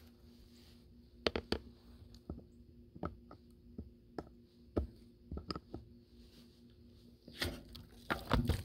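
Metal hand tool clicking, knocking and scraping in a broken well-head fitting while foam is dug out of it: separate light knocks every half second or so, growing busier and louder near the end, over a faint steady hum.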